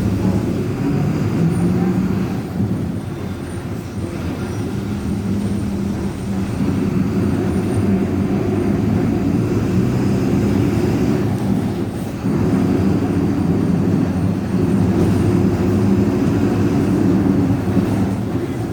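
VolksBus 17.230 EOD city bus under way, its MWM 6.12 TCE turbo-diesel running with a growling whine from the differential. The tone and loudness dip and rise as the bus changes speed, with a drop a few seconds in and a step back up about twelve seconds in.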